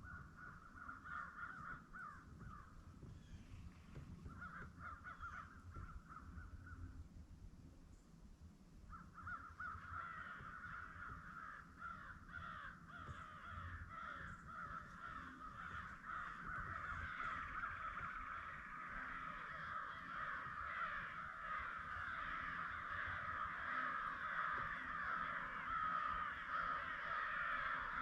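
A flock of birds calling together in a dense, continuous chatter, with short breaks early on, then steady and growing louder from about nine seconds in.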